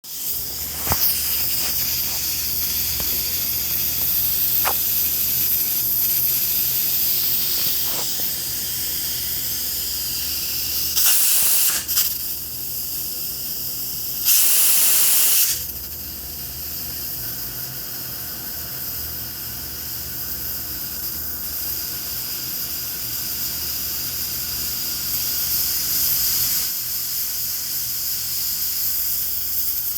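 Pressure cooker hissing steadily as steam escapes from its valve, with two short, louder spurts of steam near the middle and a few faint clicks early on.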